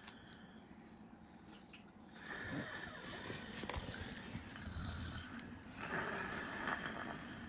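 A man snoring in his sleep: quiet for about two seconds, then several rough snoring breaths, one with a low rumble about five seconds in.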